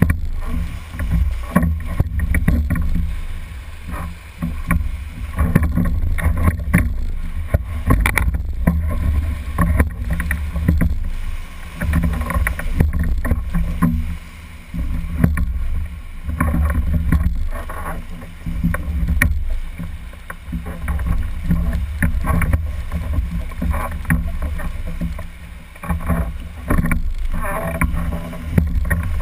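Whitewater rapids rushing and splashing around a rowed raft, with a strong, uneven low rumble and frequent irregular knocks and splashes as the raft and oars work through the rapid.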